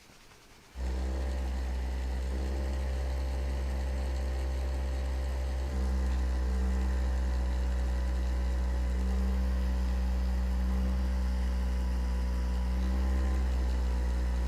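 A motor-driven device starts about a second in and runs with a steady low hum, shifting up slightly in level partway through.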